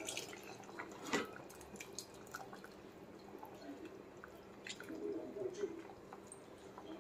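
Tamarind water dripping and trickling off a hand into a steel pot of curry as the last of it is poured in, with scattered small drips and one light knock about a second in.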